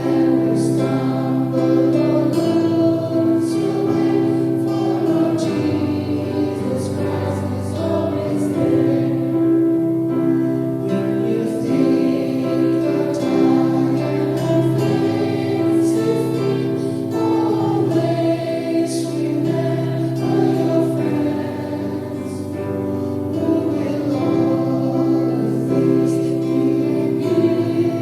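A choir singing a Christian worship song with instrumental accompaniment.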